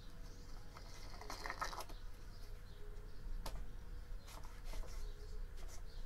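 Small plastic clicks and rattles as a desk fan's blade is seated on the motor shaft and its hub cap screwed on by hand: a cluster of clicks about a second in, one sharp click midway, and a few more shortly after.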